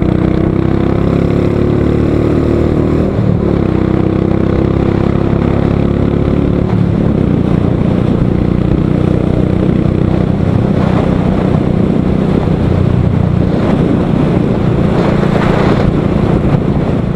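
Royal Enfield motorcycle's single-cylinder engine running steadily at road speed, heard from the rider's position with wind rushing over the microphone, the wind gusting harder in the later seconds. A second, higher engine drone from a bus alongside fades out over the first several seconds.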